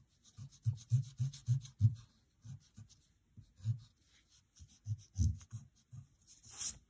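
Eraser rubbing back and forth on drawing paper, rubbing out pencil construction lines. The strokes come in short, quick runs with pauses between.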